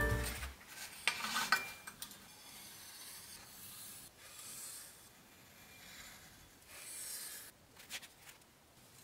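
A metal scriber scratching marking lines into a steel plate along a steel rule, in several short, faint strokes. A couple of light clicks come near the start.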